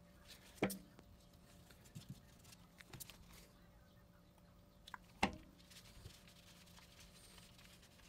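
Handling noise from faucet parts and a grease tube worked with gloved hands: sparse small ticks and three sharp knocks, one just under a second in, one about three seconds in and one about five seconds in, over a faint steady hum.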